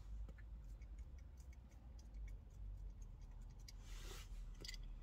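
Faint small clicks and scratches of a metal pipe tamper pressing down the burning tobacco in a pipe bowl, then a soft breathy puff on the pipe about four seconds in.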